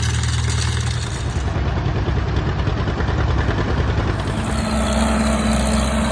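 An engine running steadily, its note shifting slightly about a second in and again around four and a half seconds.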